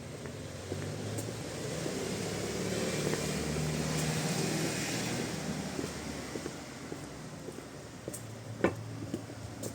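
Steady low drone of generators running during a power outage, with a car passing, its noise swelling about three to five seconds in and fading away. A sharp click comes near the end.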